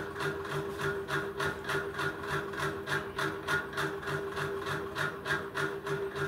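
A steady, rhythmic mechanical clatter of about four beats a second over a continuous hum.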